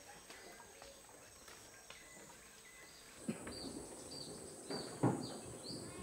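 Outdoor tropical ambience: faint chirps at first, then from about three seconds in a bird repeating short falling chirps over a steady high whine, with a few dull thumps, the loudest about five seconds in.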